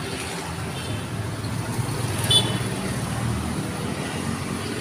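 Street traffic: motorcycles and cars passing, a steady low engine rumble that swells about two seconds in. At its peak there is one brief, sharp, high-pitched toot or ring.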